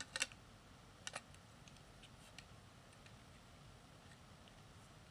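Small plastic Lego bricks clicking as they are handled and pressed together: a quick cluster of sharp clicks at the start, two more about a second in, then a few faint ticks.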